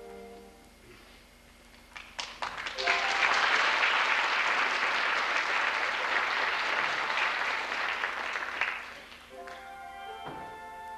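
Music holds a last note that stops about half a second in. After a short lull an audience starts clapping, a few scattered claps at first and then full applause for about six seconds. The applause dies away and music starts again near the end.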